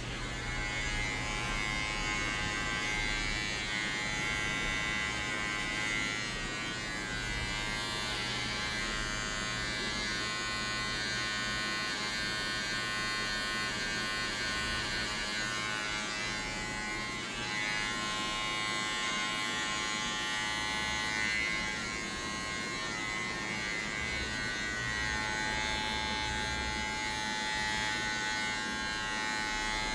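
Electric hair clippers buzzing steadily as they cut a fade, the motor's tone and level shifting slightly as the blade moves over the head.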